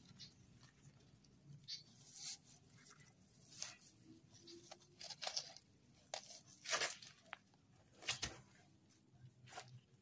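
Hands working potting soil around a potted plant: irregular soft rustles and crackles, the loudest a little past the middle.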